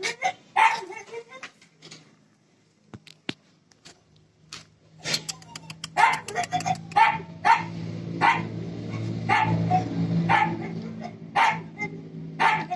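Dog play-barking with short, sharp barks: a few at the start, a lull of about three seconds, then a bark every half second to a second. A steady low hum sets in about five seconds in.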